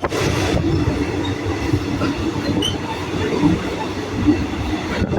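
Passenger train running along the track: a steady low rumble of wheels on the rails.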